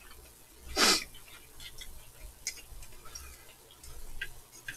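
A short, loud slurp of noodles a little under a second in, followed by scattered small clicks and ticks of eating.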